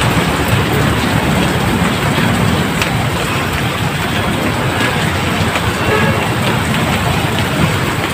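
Heavy rain pouring steadily, a loud even hiss of downpour.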